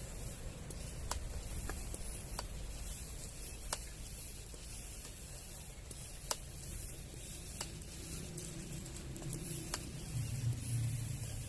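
Hand-operated PCP high-pressure air pump being worked to charge a CO2 airgun through an adapter, with a sharp click at the stroke ends, often about 1.3 s apart, over a low steady rumble.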